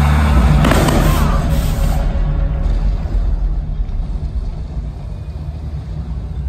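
Show soundtrack music over the theatre's sound system, carried by a deep sustained drone. About a second in, a noisy boom-like effect sweeps in and dies away over the next second or so.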